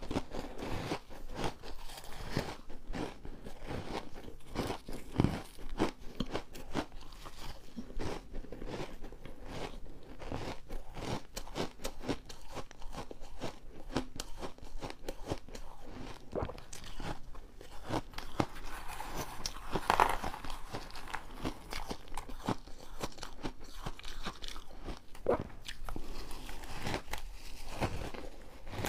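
Someone biting and chewing refrozen ice close to the microphone: a rapid, irregular run of crisp crunches and cracks, with a louder bite about twenty seconds in.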